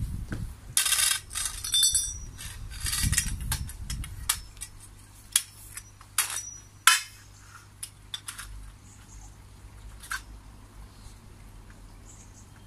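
Metal polytunnel frame tubes being pushed together into their connectors: a run of sharp clinks, knocks and scrapes, one ringing briefly about two seconds in and the loudest knock about seven seconds in, with fewer after that.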